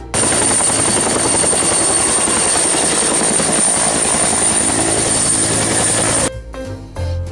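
Helicopter with its rotor chopping rapidly over a steady high-pitched turbine whine. It starts abruptly and cuts off suddenly after about six seconds, and music comes in near the end.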